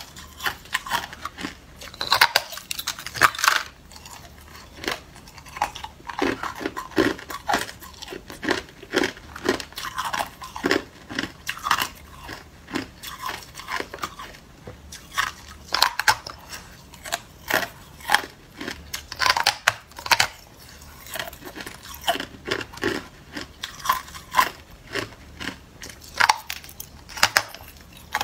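A person biting into and chewing a large block of hard clear ice: many sharp, irregular cracks and crunches.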